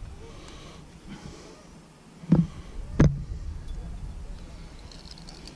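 Two short, dull thumps less than a second apart, over a faint low rumble.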